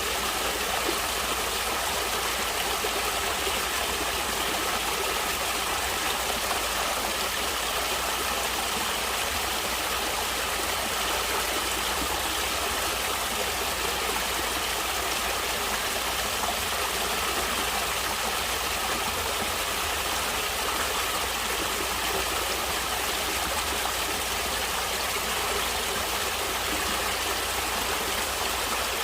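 Water of a natural stream flowing and splashing, a steady, even rush of sound with no pauses.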